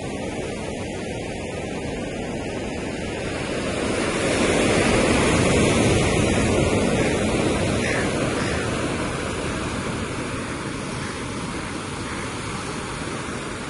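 Sea waves washing in against the shore, a steady rush that swells about four seconds in and slowly eases off again.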